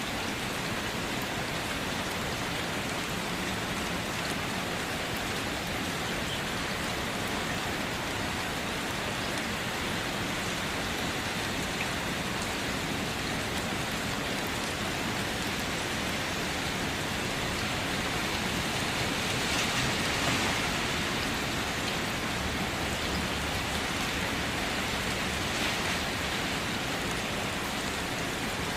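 Steady rain falling and pattering on surfaces, a dense even hiss that swells slightly about two-thirds of the way through.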